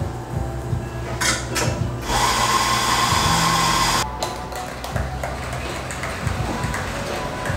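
Espresso grinder motor running for about two seconds, with a steady whine, amid light clicks and knocks of barista tools.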